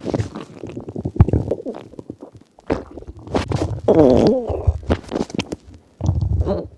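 Human stomach growling and gurgling: several irregular bouts of low rumbling and bubbling with short pauses between them. About four seconds in comes the loudest part, a wavering, squeaky gurgle.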